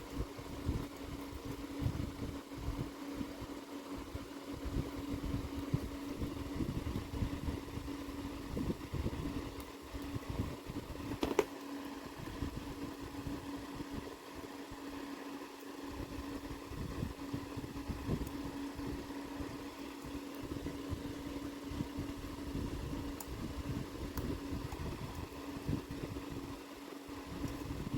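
Steady mechanical hum with an uneven low rumble beneath it, and a single sharp click about eleven seconds in.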